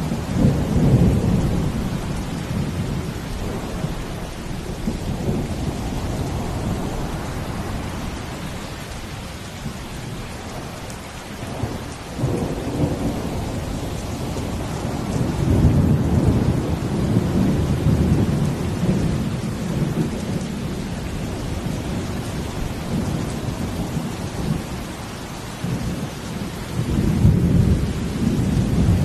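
Steady rain with deep, low rumbles that swell and fade several times, the strongest about a second in, in the middle and near the end.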